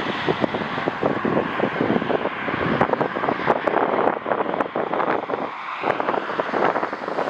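Gusty wind buffeting the microphone in rough, uneven thumps over the steady noise of a jet airliner's engines.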